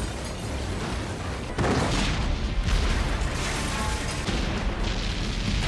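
A run of film explosions cut back to back: each blast starts suddenly, about one a second, over a continuous deep rumble and debris noise.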